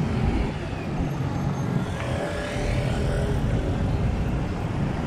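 Steady street traffic noise, with motor vehicle engines running close by in a busy city street.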